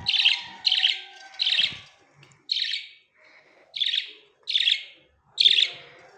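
Pet bird calling in a run of short, loud chirps, about seven of them, each under half a second and coming roughly one a second, with a brief pause in the middle.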